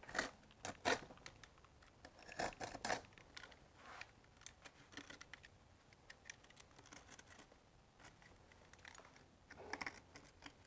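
Utility knife blade scratching and cutting into a cured RedGard liquid waterproofing membrane over a mortar bed, in faint short scraping strokes: several in the first three seconds, a few more later. The membrane is fragile and breaks into little flakes rather than peeling.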